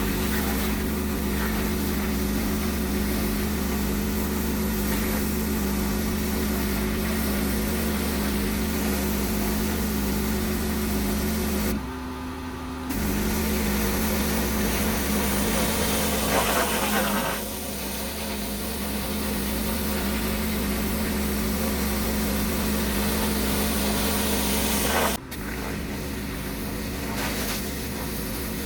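Pressure washer running steadily with a high-pressure water spray hissing. The spray cuts out for about a second near the middle, and the sound drops abruptly near the end.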